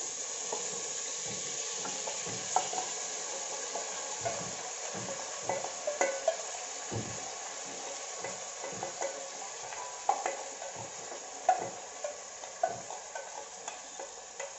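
Marinated chicken sizzling as it goes into hot ghee and oil in a pressure cooker, the sizzle starting suddenly and slowly dying down, with a utensil clicking and scraping against the pot as it is stirred.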